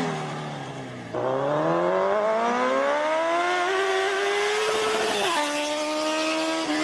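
A vehicle engine accelerating, its pitch climbing steadily for several seconds, then dropping suddenly about five seconds in, as at a gear change, and holding steady.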